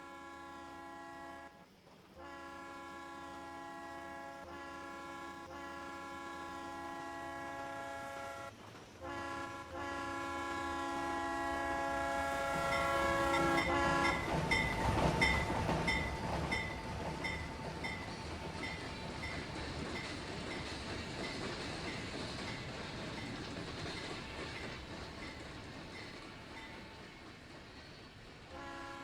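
Steam whistle of a doubleheaded Pennsylvania Railroad steam train, PRR 7002 and PRR 1223, sounding three blasts with several pitches at once, the middle blast longest. The train then passes close, loudest about fifteen seconds in, with a regular beat of wheels and running gear, and fades as it goes away.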